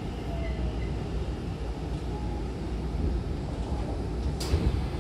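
Low, steady rumble inside a Hankyu commuter train car standing at a station with its doors closed. About four and a half seconds in there is a short, sharp burst of noise, louder than the rest, just before the doors open.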